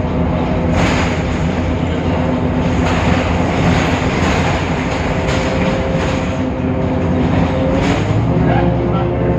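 Temsa Avenue LF city bus's DAF PR 228 diesel engine and ZF Ecolife automatic gearbox running, a loud steady drone with engine hum and road noise. About eight seconds in the noise thins and steady tones take over.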